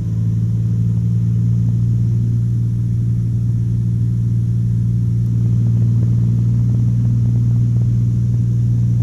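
Cessna 182's single piston engine and propeller droning steadily in cruise, heard from inside the cabin: one deep, even hum with a few overtones.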